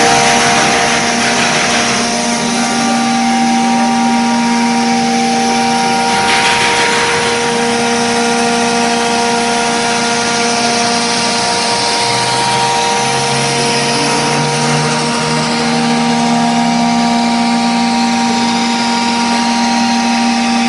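CNC router's 7.5 HP spindle running at a steady pitch, its bit cutting melamine-faced 18 mm MDF, with a constant hiss of cutting over the spindle's whine.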